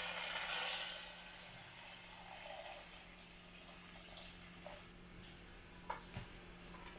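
Water being poured into a pot of just-fried soup ingredients, hissing and splashing, dying away over the first two or three seconds; a few faint clicks follow.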